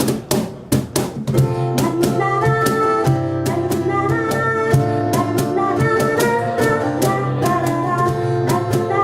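A live band playing the opening of an upbeat song: a steady drum beat, joined about a second and a half in by a melody of held notes over the beat.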